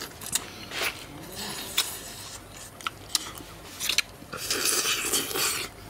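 Eating noises from two people sucking and biting the flesh off cooked eels: a few short sharp smacks and crunches, then a long loud slurp about four and a half seconds in.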